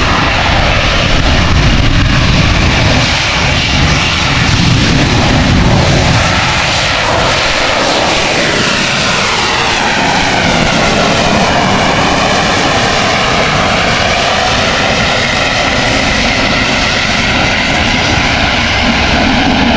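The AV-8B Harrier II's Pegasus jet engine runs very loud, with a whining tone over the roar that rises and falls in pitch midway as the jet moves.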